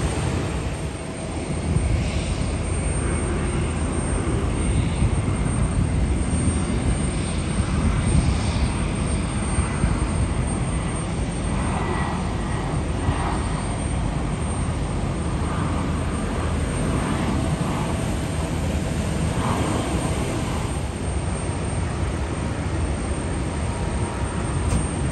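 Jet airliners on final approach and landing, their engines making a steady low rumble with a faint whine above it.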